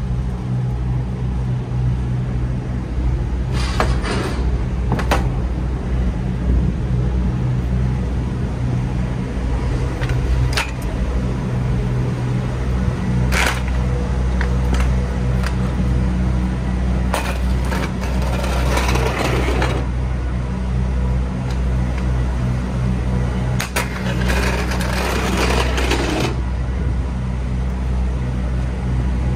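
MAN TGX truck's engine running with a steady low drone. A few sharp clicks and two longer stretches of rustling handling noise sound over it.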